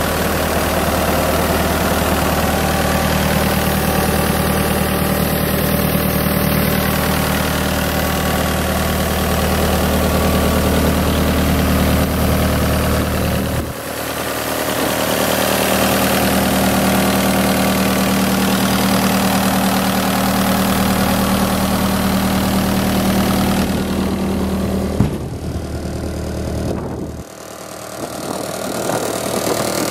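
Kubota diesel engine of a Rotair D185 T4i towable air compressor running steadily at idle. Its tone shifts about halfway through, and the level dips briefly near the end.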